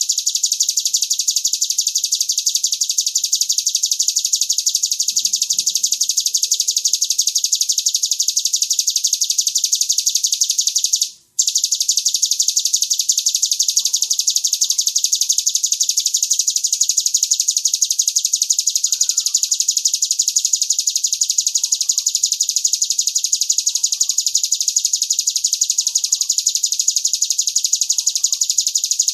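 Recorded songbird song used as a masteran track: one continuous, very fast, high-pitched trill with a brief break about 11 seconds in. Faint lower chirps come in over it from about halfway.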